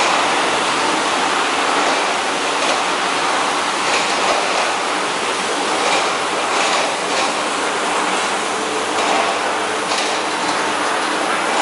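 Double-chuck rotary veneer peeling lathe peeling a log: a steady, loud rushing machine noise, with occasional light clicks and knocks.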